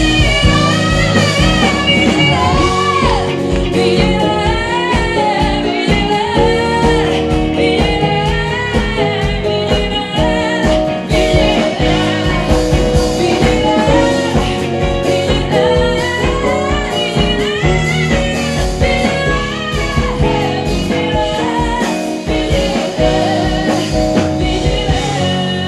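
A woman singing a pop song live with a full band, over a steady beat.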